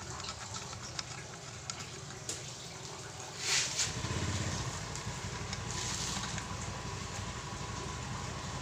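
A motor vehicle engine running steadily, its low rumble growing louder about four seconds in, with two short hissing sounds.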